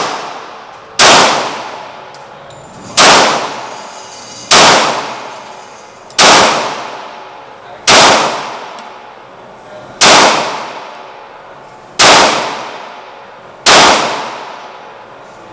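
Glock 30 .45 ACP pistol fired eight times, deliberate single shots about every one and a half to two seconds, each shot ringing out and fading over a second or more.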